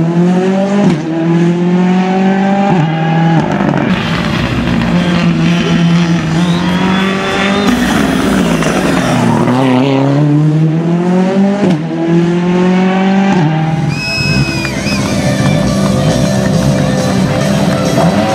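Ford Fiesta rally car's engine under hard acceleration, its pitch climbing and dropping back at quick gear changes. It falls in pitch as the car slows about halfway through, then climbs again. A brief high squeal comes about two-thirds of the way in.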